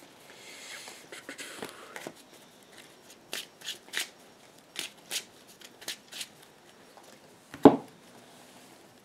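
Yu-Gi-Oh! playing cards being handled on a table: a series of light, sharp card snaps, about two a second, then one louder thump near the end.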